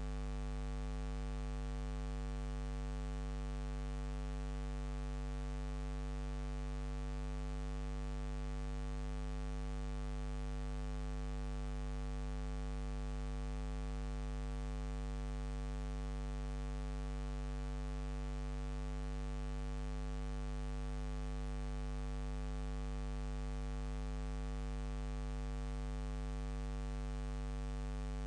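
Steady electrical mains hum with a faint hiss and nothing else, unchanging throughout.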